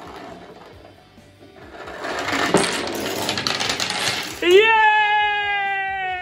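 Dominoes clattering as they topple in a chain on a wooden tabletop, a quick run of small clicks. About four and a half seconds in, a child gives a long, high-pitched cheering shout.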